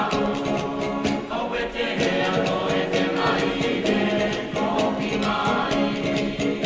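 Background music: a choir of voices singing together over a regular percussive beat.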